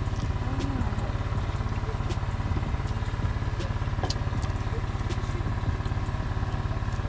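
Small portable generator engine running steadily at constant speed. A few faint clicks sound over it, the clearest about four seconds in.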